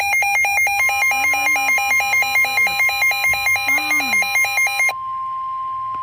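Electronic emergency-alert tones: a rapid, even beeping, about four beeps a second, with a steady single-pitched alert tone joining about a second in. The beeping cuts off about five seconds in, leaving the steady tone, the Weather Radio-style alarm that comes before a flash flood warning is read.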